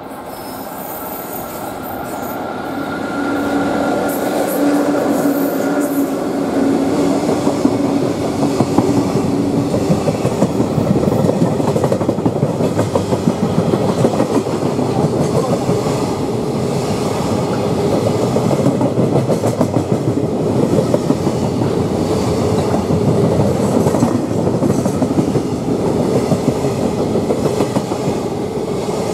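An EF66 electric locomotive hauling a container freight train passes close by at speed, getting louder over the first few seconds with a steady hum. Then the container wagons run past with a continuous loud rumble and a heavy clatter of wheels over the rail joints.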